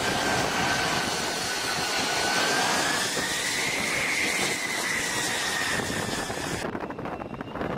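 F-35 Lightning II's F135 jet engine running as the fighter taxis on a carrier deck: a steady rush with a high whine that rises a little in pitch midway and then eases back. Near the end it gives way to a quieter, gusty wind-like rush with a faint high tone.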